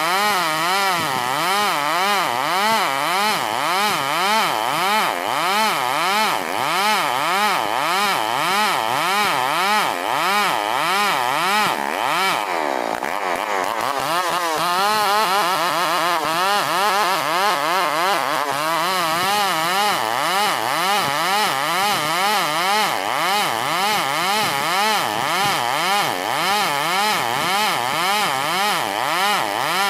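STIHL 070 two-stroke chainsaw running under load, ripping a Borneo ironwood (ulin) log lengthwise. Its pitch wavers up and down in a steady rhythm, sags lower about halfway through and climbs back over the next few seconds.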